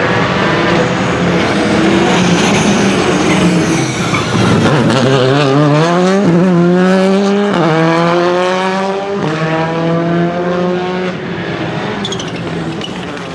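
Rally car engine dropping low, then accelerating hard up through the gears. The pitch climbs and falls back at each of four quick upshifts, then fades as the car pulls away.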